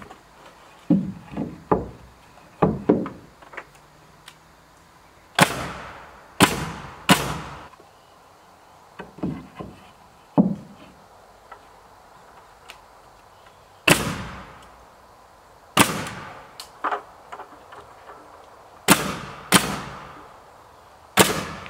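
Pneumatic nail gun driving nails through rough-sawn wooden siding boards: about eight sharp single shots, several in quick pairs, with lighter knocks between them as boards are fitted.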